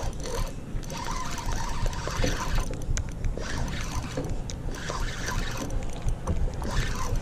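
Spinning reel cranked steadily to retrieve line, its gears whirring faintly with a few small clicks, under a steady low rumble.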